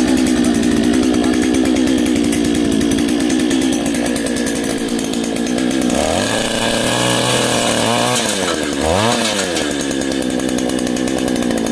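Two-stroke petrol earth auger engine running at high speed. About six seconds in, as the auger bores into the soil, the engine note wavers, dipping and rising, then settles back to a steady run near the end.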